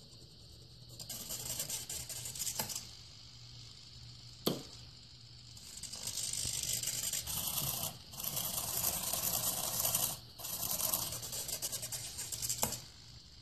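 A useless box working: its small motor whirs in several stretches of a second or two as the arm and lid move to flip back the toggle switch, with clicks and clacks of the switch and lid, the sharpest about four and a half seconds in.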